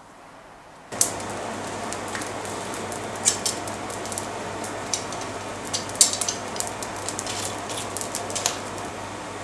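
Coal forge fire under forced air, starting suddenly about a second in: a steady rush of air from the blower with a low hum, and irregular sharp crackles and pops from the burning coal.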